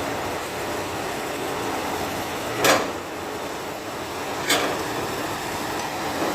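Excavator engine running steadily under load, with two sharp clunks about two seconds apart, the louder first, from the machine's bucket and boom working.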